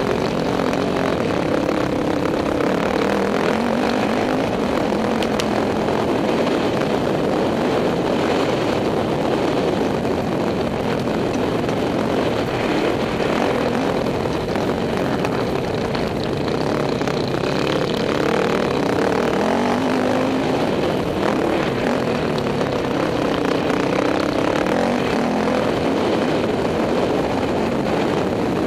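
Dirt bike engine running hard, its pitch rising and falling with throttle and gear changes, over a steady rush of wind noise on the microphone.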